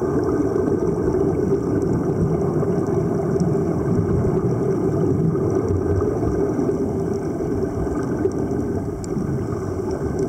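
Steady, muffled underwater rumble as picked up by a camera submerged in the sea, with no break or change.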